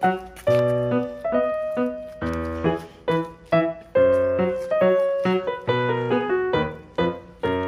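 Background piano music: a melody of short struck notes, about two a second, over lower bass notes.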